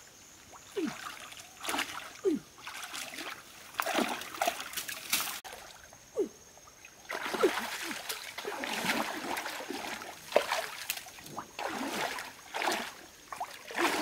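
Shallow stream water splashing and sloshing in short irregular bursts as a person wades and reaches through it with hands and feet, with small falling plops of dripping water.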